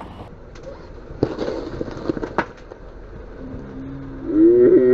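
Minivan rolling slowly onto a cardboard box wedged against a skateboard: faint crackles and a few sharp clicks, then a loud wavering pitched sound in the last second or so as the tyre presses into the box.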